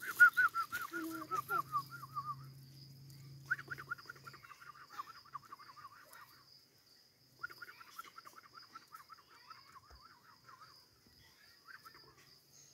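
A bird calling in three quick runs of short repeated notes, several a second, over a steady high-pitched insect drone.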